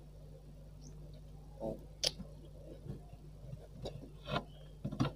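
Close-up eating sounds while chewing and sucking on a chicken foot: a handful of short, sharp, wet mouth clicks and smacks, spaced irregularly, over a low steady hum.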